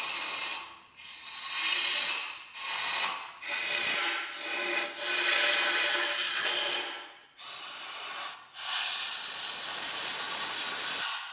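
Compressed-air blow gun hissing in repeated blasts of one to three seconds with short breaks between, the last cutting off near the end. It is blowing sludge and debris out of the water jackets of a Subaru EJ253 engine block with the heads off.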